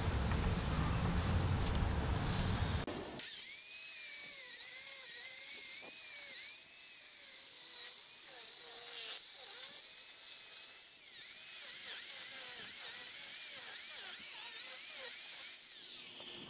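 Angle grinder cutting out old mortar joints in a brick wall: it starts suddenly about three seconds in, then runs as a steady high whine that wavers in pitch over a gritty hiss.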